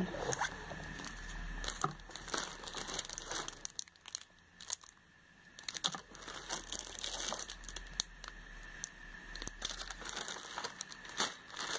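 Clear plastic packaging around a folded shirt crinkling and rustling as it is handled, with a quiet pause about four seconds in before the rustling picks up again.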